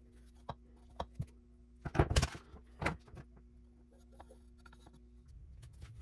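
Handling noises as a stained wooden carving is wiped with a cloth rag: a few light knocks, and a louder rubbing scrape about two seconds in. A steady low hum runs underneath and stops shortly before the end.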